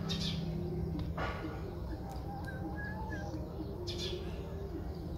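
Cats chewing grilled dried fish, with a few short noisy crunches, while birds chirp and coo in the background over a low steady hum.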